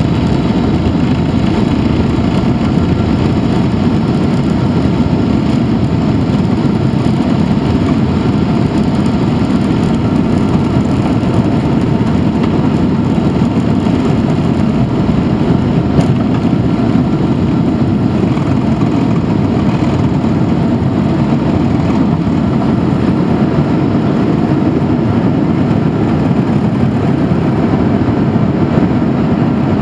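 Boeing 767-300ER's Rolls-Royce RB211 turbofans at takeoff power, heard from the cabin over the wing as a loud, steady rushing noise with faint steady whines, through the takeoff roll and liftoff. A brief click about halfway through.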